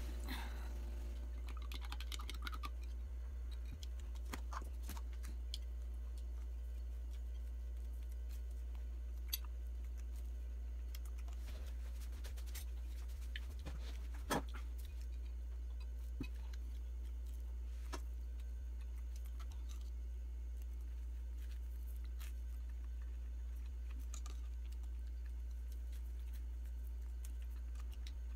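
Scattered small clicks and taps of a metal spoon and butter knife on glass cups and a plate, with soft eating sounds, over a steady low hum. The sharpest click comes about halfway through.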